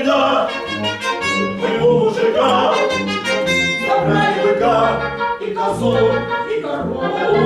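Symphony orchestra playing operetta music: bowed strings over a steady, bouncing bass line.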